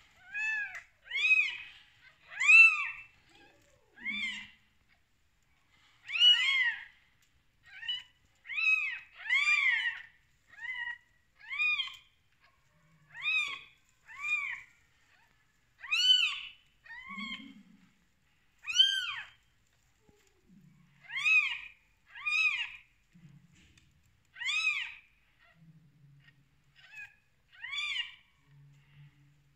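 Newborn kittens mewing: short, high-pitched cries that rise and fall in pitch, about one a second.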